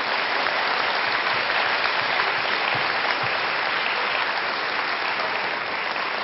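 Large audience applauding steadily, a dense patter of many hands clapping that eases slightly near the end.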